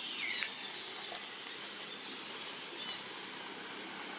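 A young long-tailed macaque gives one short, high call that slides down in pitch right at the start, over a steady hiss of forest background.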